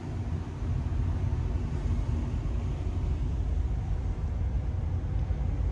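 Wind buffeting the microphone on the open deck of a ferry under way: a steady low rumble that grows louder about half a second in. A faint steady hum from the ship runs beneath it for the first half.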